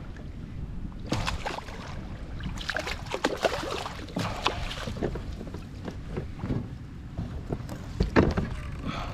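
Knocks, clicks and rattles of handling on a fishing kayak, busiest for the first half and again near the end, over a steady low rumble of wind on the microphone.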